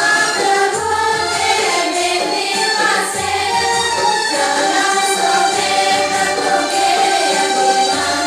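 A group of voices singing a song together with instrumental accompaniment, as music for a line dance.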